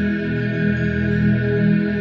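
Ambient relaxation music of steady, sustained held tones, with no beat.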